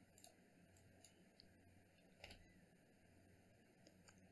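Near silence: faint room hum with a few soft clicks of a computer mouse, the clearest about two seconds in.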